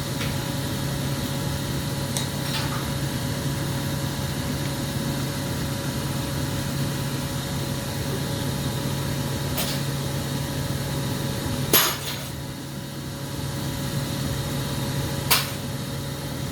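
Steady low hum of a workshop with a few sharp clicks and knocks of hard objects being handled and set down on a bench, the loudest about twelve seconds in.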